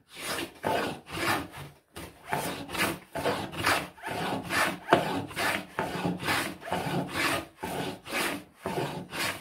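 Hand grooving plane with a 3D-printed body cutting a groove along a board's edge in quick back-and-forth strokes, two to three a second. The cutter is set aggressively, taking shavings close to a millimetre thick.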